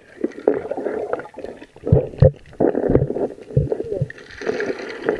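Muffled, uneven sloshing and gurgling of sea water around the camera, with a few sudden low thumps about two seconds in and again near three and a half seconds.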